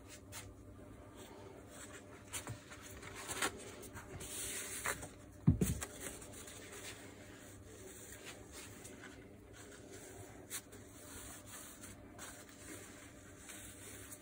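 Paper towel rustling and rubbing as grease is wiped off the demolition hammer's metal barrel, with small clicks of handling. One dull thump about five and a half seconds in is the loudest sound.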